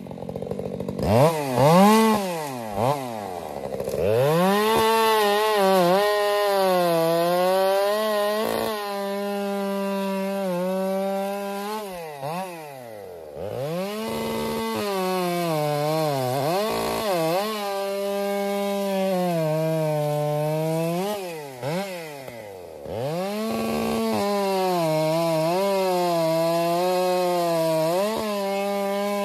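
Large two-stroke chainsaw cutting through a shagbark hickory trunk. The engine revs up, holds a steady high pitch while the chain is in the wood, and its revs drop and pick up again several times.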